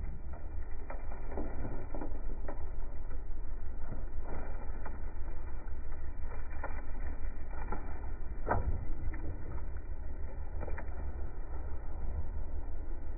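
Steady low rumble of a Cat 303.5 mini excavator's diesel engine, with scattered knocks and thuds of dirt clods and rocks tumbling onto the model railway track, the loudest a little past the middle.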